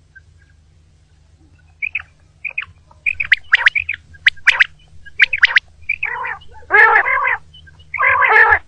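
Common quail calling: a few short chirps about two seconds in, then a run of loud, sharp calls, and near the end longer, harsher calls, over a faint low hum.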